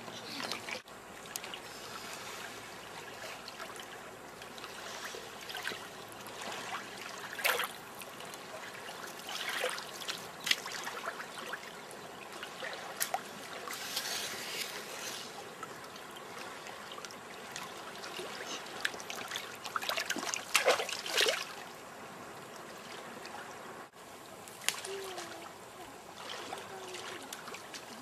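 Water lapping and trickling, with a few sharper splashes at irregular moments.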